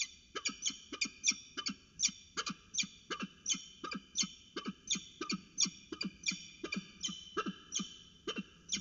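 Peregrine falcon giving its alarm call at an intruder: a steady run of repeated short calls, about two to three a second.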